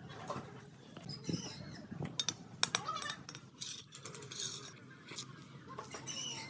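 Sharp metallic clinks and short scrapes of hand tools on tile and mortar, scattered irregularly, with a cluster of clicks in the middle.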